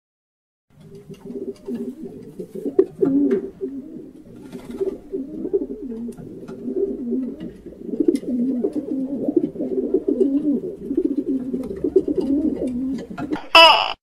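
White dove cooing: a long run of low coos, one after another, rising and falling in pitch. Just before the end a brief, louder and sharper call cuts in.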